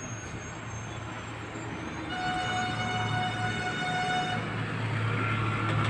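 Steady background noise with a low hum; about two seconds in, a horn-like steady tone sounds for a little over two seconds, with a short break near its end.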